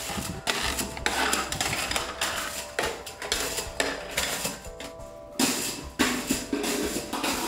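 3D-printed PLA plastic spring (Springo) flopping end over end down wooden stairs, its coils clattering in a burst each time it lands on a step, over background music.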